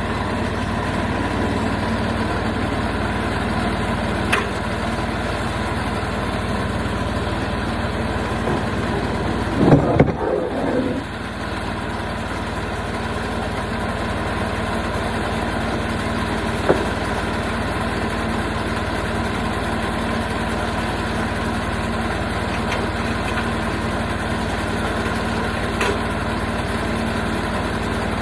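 Portable sawmill's engine running steadily. About ten seconds in there is a short, louder clatter lasting about a second, and a few faint clicks are heard here and there.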